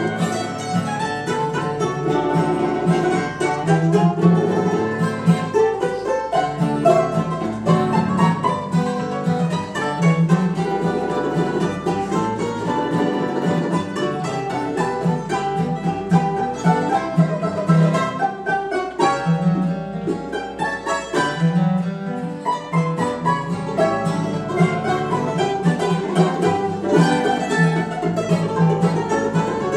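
Live string trio playing a ragtime tune: a mandolin-banjo takes the picked melody, with a second mandolin and an acoustic guitar accompanying. The low guitar accompaniment drops away for a couple of seconds about two-thirds of the way through, then comes back.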